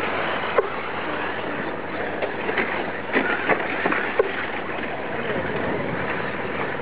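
Electric brushless RC short-course trucks racing on a dirt track: a steady noise of the trucks running over the dirt, broken by a few sharp knocks as they land and tumble.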